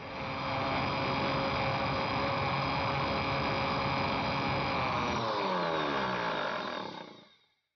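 Countertop electric blender running on chopped bird's-eye chillies, fresh turmeric and water, a steady motor whine with the blades churning the liquid. About five seconds in it is switched off and the motor winds down with a falling whine to a stop, a brief run meant to leave the paste coarse.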